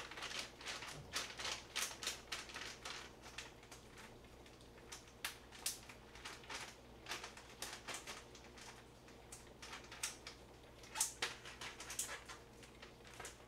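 Irregular light clicks and crinkles of small items being handled, several a second, with a louder cluster about eleven seconds in.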